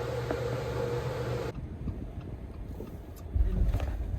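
Steady mechanical hum of room noise, with a held mid-pitched tone, that cuts off suddenly about one and a half seconds in. It gives way to quieter open-air background, with a low rumble of wind on the microphone from about three seconds in.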